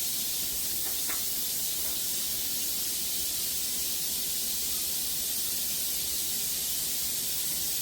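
A steady, even hiss from the stove, with a faint tick about a second in.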